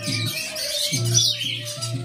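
Many caged small birds chirping over one another, with background music carrying a steady low rhythmic line.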